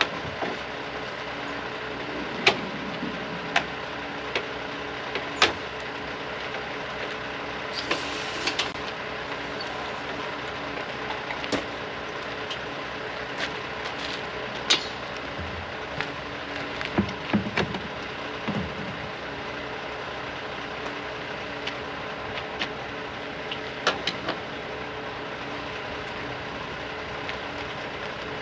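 An engine idling steadily, with sharp knocks and clicks scattered throughout and a few dull thuds about two thirds of the way in.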